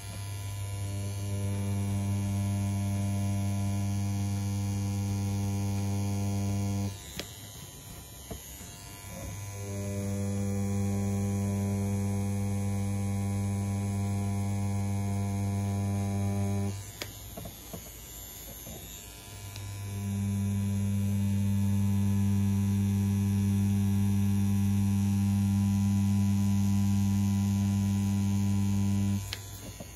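CNC P6 rotary tattoo pen running at 7.5 volts with a 3.6 mm stroke while lining with a round shader needle cartridge: a steady electric hum. It runs three times, for about seven to nine seconds each, stopping briefly between runs.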